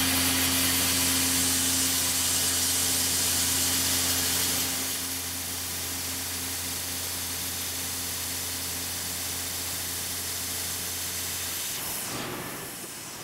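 A CNC mill slots 304 stainless steel with a 1/8-inch carbide end mill: the spindle hums steadily under the even hiss of Fogbuster mist coolant. The cut sounds even, with no sign of recutting chips. The sound drops in level about five seconds in, and the spindle hum stops near the end, leaving a quieter hiss.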